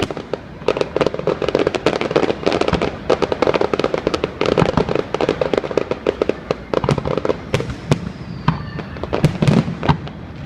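Fireworks exploding in rapid, crackling volleys of many bangs, thinning out into a few separate booms near the end.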